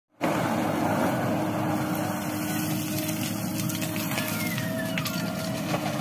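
Diesel engines of a JCB 3DX backhoe loader and a Mahindra 475 DI tractor running steadily while the backhoe digs and loads soil.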